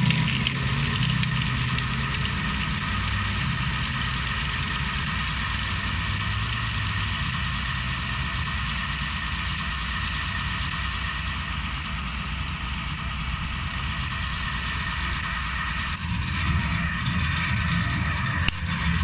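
Large-scale radio-controlled model tanks running across grass: a steady engine-like drone with a steady whine on top, a little louder in the last few seconds, and a single sharp crack shortly before the end.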